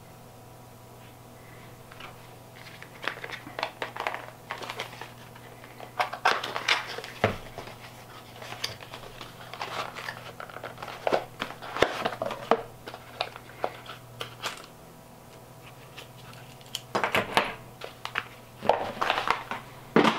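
Packaging rustling and small clicks and knocks as a small accessory box is opened and its plastic and metal mount is handled on a wooden table, in irregular clusters, with a faint steady low hum underneath.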